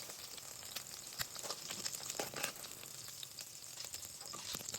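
Eggs frying in hot soybean oil in a pan: a faint steady sizzle with scattered small pops and crackles.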